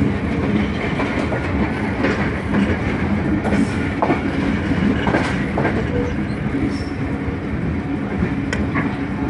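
Passenger train running, heard from a coach's open doorway: a steady rumble of wheels on rail with scattered sharp clacks as the wheels cross rail joints.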